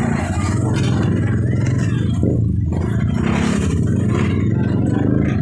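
Busy street-market ambience: a steady low rumble with music playing.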